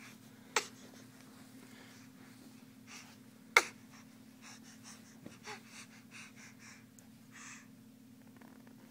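Two sharp knocks about three seconds apart, as the baby bumps the phone with his face or hands close up. These are followed by a run of short breathy puffs, a baby's breathing right at the microphone.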